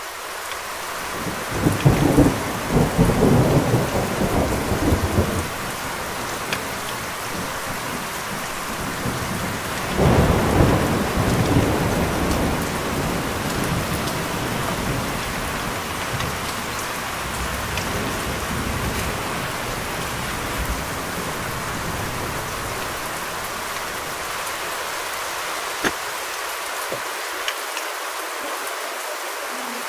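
Steady heavy rain falling, with two rolls of thunder: the first rumbles in about two seconds in, and a second comes about ten seconds in and slowly dies away.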